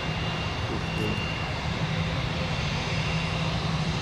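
Jet engines of a twin-engine Boeing 777 airliner on final approach at low thrust: a steady low rumble with a thin, high whine over it.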